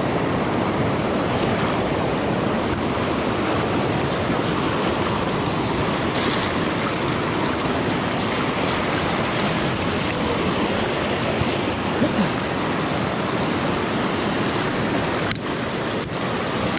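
Fast river current rushing over boulders close by, a steady even wash of whitewater.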